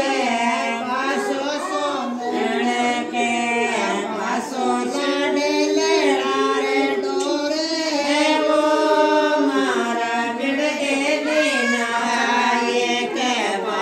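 Group of women singing a Rajasthani (Shekhawati) baan wedding folk song together, the chant-like melody running on without a break.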